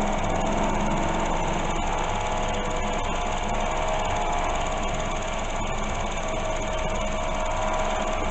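Milling machine running steadily, drilling a hole in a steel block: an even machine noise with a constant whine.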